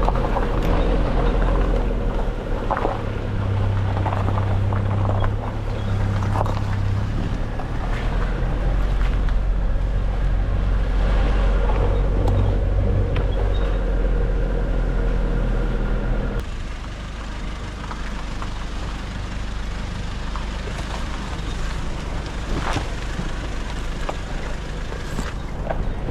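Nissan Navara D40 4WD ute driving off-road, its engine running steadily under a low hum, with scattered knocks and rattles. About two-thirds of the way through the sound changes abruptly to a quieter drive.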